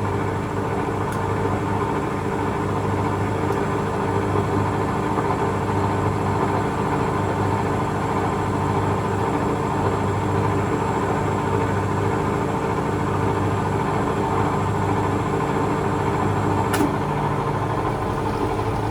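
Hoover Electra 535 Dual Spin washing machine running its interim spin, a steady motor hum with a slight rumble from bearings that are starting to go. A single sharp click near the end, after which the hum changes slightly.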